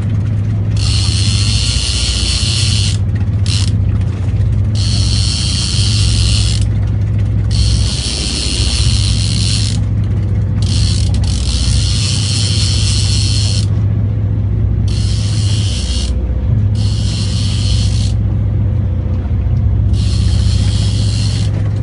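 Saltwater trolling reel buzzing in repeated spells of one to two seconds with short breaks, line running through it under load with a fish on, over the steady low hum of a boat engine.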